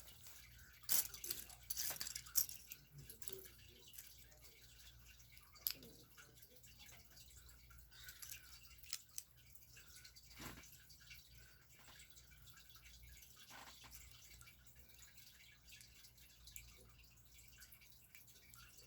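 Small plastic LEGO pieces being handled and pressed together: faint, scattered clicks and light rattles, with the sharpest clicks in the first six seconds.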